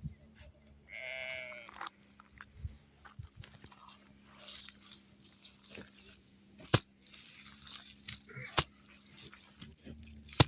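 A goat bleats once about a second in, a wavering call just under a second long. A few sharp knocks follow later.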